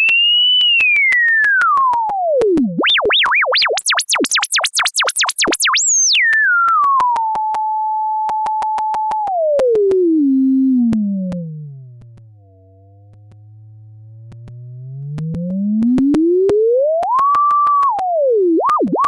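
Pure sine tone from an online tone generator, its pitch slid by hand. It falls from high to low, wobbles fast up into a piercing high pitch, holds a steady mid tone, sinks to a quieter low hum about halfway through, then climbs back and holds before warbling near the end, with faint clicks throughout.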